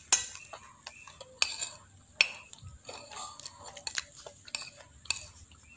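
Metal spoon and fork scraping and clinking against a ceramic plate while scooping up rice and chicken, with several sharp clinks spread through.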